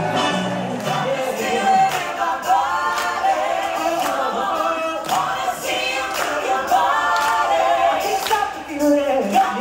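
A group of voices singing together, with a beat of sharp percussive hits.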